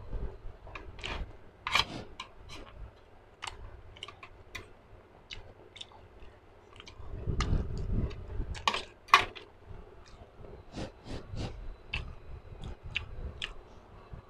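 Close-miked chewing and wet mouth sounds of a person eating spicy food, with many small sharp clicks and smacks. A louder stretch of mouth noise comes about seven seconds in.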